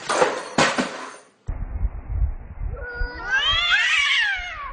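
A cat's long drawn-out yowl, rising and then falling in pitch over about two seconds: the threatening caterwaul of a cat squaring off against another. It comes over a low rumble, after a second of rustling noise at the start.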